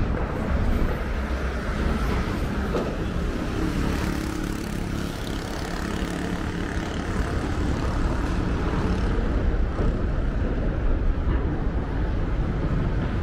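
Steady low rumble of engines and traffic: city street ambience.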